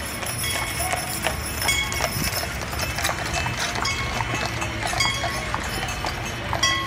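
Horses' hooves clip-clopping on the street as a team of draft horses pulls a horse-drawn steam fire engine past, with short ringing tones now and then.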